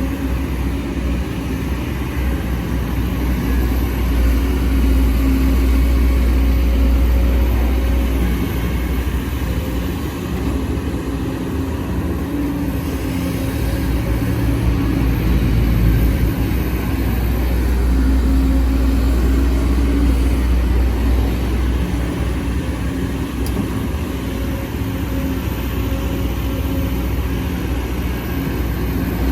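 Sumitomo SH210F excavator's diesel engine working under load, a steady low rumble whose pitch and loudness rise and fall every few seconds as the machine digs and swings.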